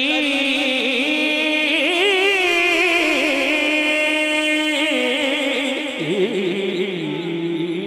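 A man singing an Urdu naat, stretching the words into long held notes that waver up and down in pitch, with no instruments heard. About six seconds in, the line drops to a lower pitch.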